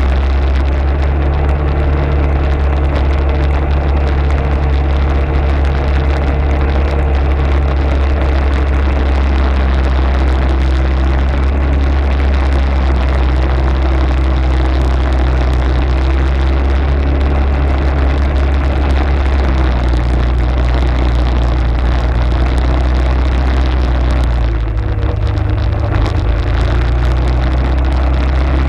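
Arctic Cat ATV engine running steadily under way, with a rushing hiss over it; the engine note shifts about twenty seconds in and dips briefly near the end.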